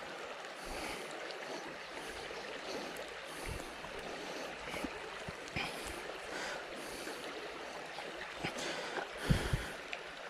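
Steady rush of flowing stream water, with a few faint ticks and a couple of dull thumps about nine seconds in.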